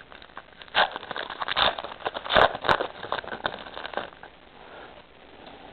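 Foil trading-card pack wrapper crinkling and being torn open, in irregular bursts that die down after about four seconds.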